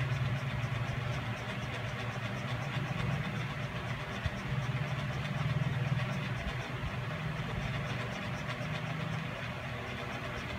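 Steady low machine hum with a faint, even ticking about three times a second.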